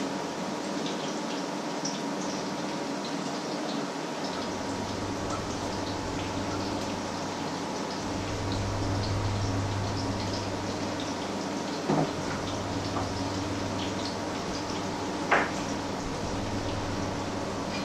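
Oil sizzling and crackling in frying pans as patties fry, under a steady low hum. Two short knocks sound in the second half, the second the louder.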